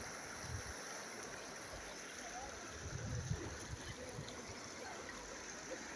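River water rushing steadily, with a few low thuds about three seconds in.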